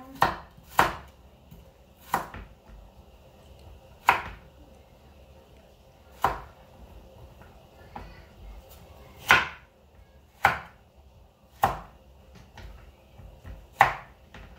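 Kitchen knife chopping carrots on a wooden cutting board: about ten sharp single knocks of the blade striking the board, spaced unevenly a second or two apart.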